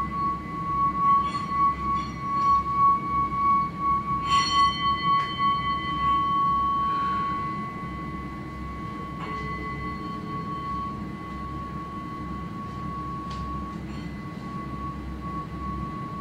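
Singing bowl sounding a steady ringing tone, with a few light metallic strikes and clinks over it, the loudest about four seconds in. The tone pulses in loudness for the first six seconds, then goes on steadier and softer.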